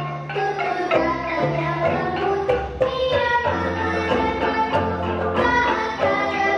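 A kolintang ensemble playing a hymn: tuned wooden bars struck in quick, even melodic patterns over a low bass line.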